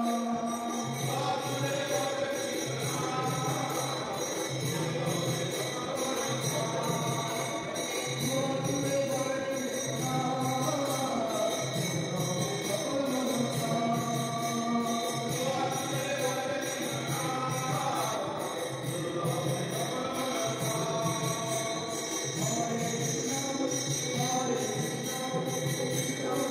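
Background music with a steady beat, a melody and jingling tambourine-like percussion.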